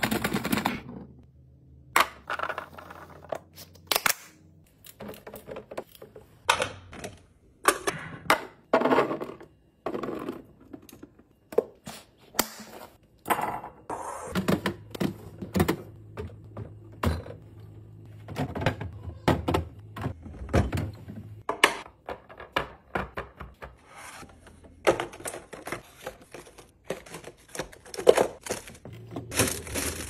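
Irregular clicks, taps and thunks of clear plastic food containers, lids and fridge bins being handled as produce is set into them. A plastic produce bag rustles near the end.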